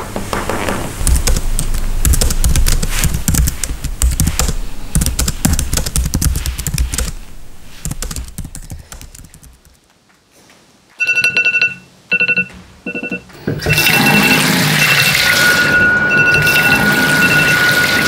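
A rhythmic track fades away to near silence. An electronic alarm then beeps in short repeated bursts, followed by a steady noise carrying a held high tone and beeps at intervals.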